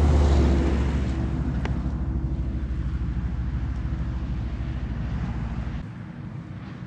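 Low, steady engine rumble of a passing vehicle, slowly fading and then dropping away about six seconds in; a single click sounds about a second and a half in.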